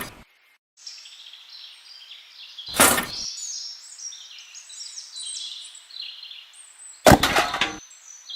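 Three loud knocks, about three seconds apart, the last one longer and rattling, over birds chirping.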